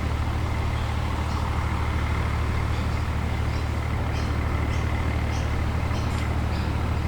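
An engine running steadily: a constant low rumble with a fast, even pulse.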